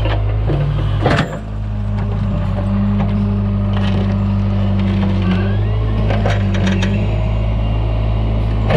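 A John Deere 410 backhoe's engine running steadily, with sharp woody cracks and knocks about a second in and again near the end.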